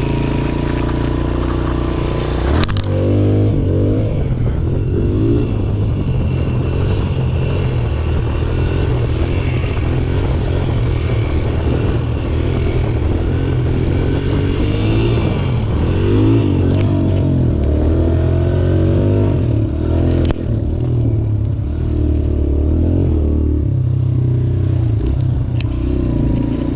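Suzuki DR-Z125L's single-cylinder four-stroke engine being ridden hard, its revs rising and falling over and over as the throttle is worked. A couple of sharp knocks come through, one about three seconds in and one about twenty seconds in.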